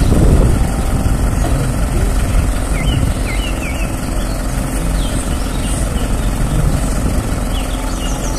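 Engine of a truck-mounted aerial work platform (bucket lift) running steadily at idle while the boom and basket are worked.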